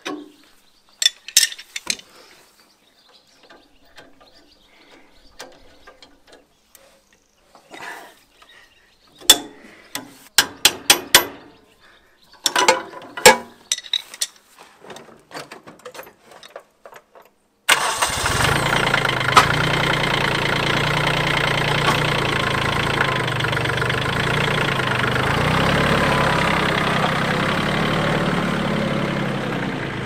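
Scattered sharp clicks and knocks. Then, about eighteen seconds in, an engine starts abruptly and runs steadily.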